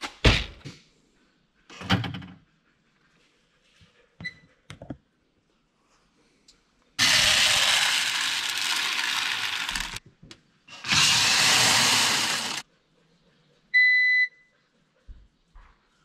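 Dry soybeans poured into the hopper of an electronic grain moisture tester: a rattling rush of beans lasting about three seconds, then a second rush of about two seconds. About a second later the tester gives one short beep as it shows its reading. A thump at the very start.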